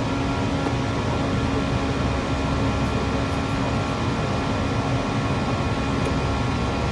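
Steady flight-deck noise of an airliner climbing: an even rush of air-conditioning and airflow with a low engine drone and a steady hum underneath.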